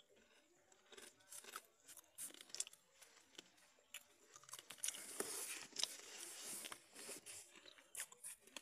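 Faint, irregular crackling and small clicks, with a denser scratchy hiss about halfway through.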